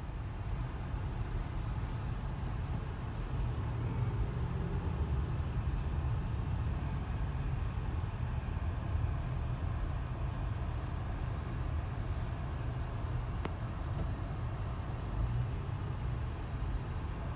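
Steady low rumble of a car moving slowly in traffic, heard from inside the cabin.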